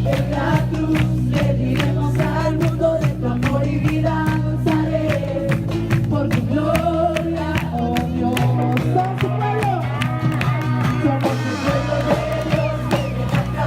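Music with singing over a steady drumbeat and sustained bass; the deepest bass drops out for a few seconds midway.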